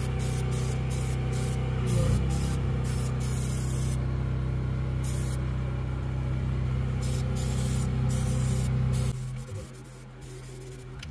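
Aerosol can of Kubota touch-up spray paint hissing in many short bursts with brief pauses between them, as rusty spots on a tractor's hitch are painted over. A steady low machine hum runs underneath and stops about nine seconds in.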